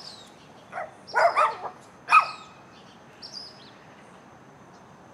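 A dog barking a few times, short sharp barks clustered between about one and two seconds in.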